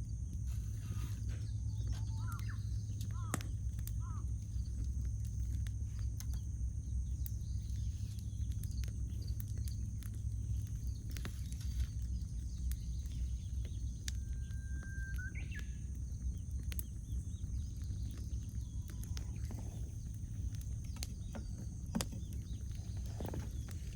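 Wood fire crackling, with scattered sharp pops over a steady low rumble. Birds call in the background: a few short chirps in the first seconds, and a held whistle about fourteen seconds in.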